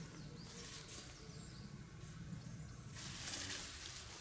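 Faint rustling of a tarp being handled on dry leaf litter, then footsteps in the leaves from about three seconds in.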